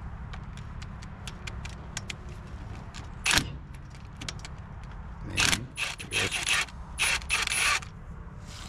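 Cordless impact driver taking out the last bolts of a truck differential cover in several short bursts, after some light metallic clicks and one sharp clank.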